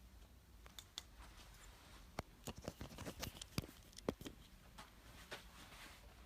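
A cluster of faint, irregular clicks and taps for a few seconds, the sharpest near the middle.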